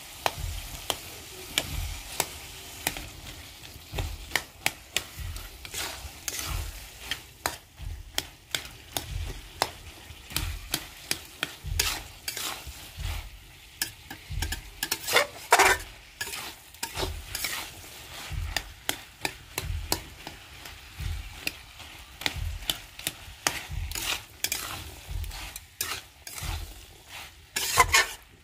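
Metal spatula scraping and knocking against a metal kadai as boiled potatoes and peas are stirred and cut up in frying masala, with a low sizzle underneath. The scrapes and taps come irregularly, about one or two a second.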